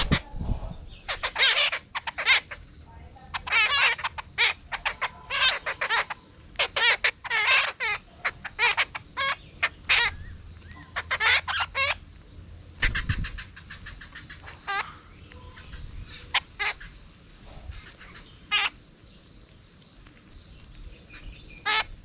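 Flock of jungle babblers calling in short, rapid chattering bursts, many overlapping in the first half, then fewer and fainter calls in the second half.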